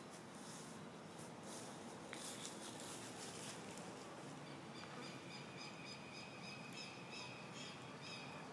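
Faint outdoor ambience with light crackling from a small wood campfire. From about halfway, a high-pitched chirping call repeats over and over.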